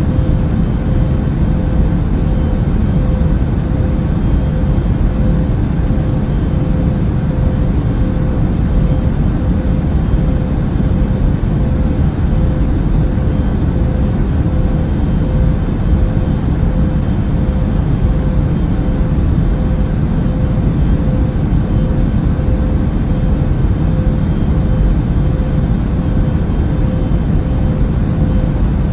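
Airbus A380 cabin noise in cruise flight: a steady, deep rumble of engines and airflow with a faint constant hum over it.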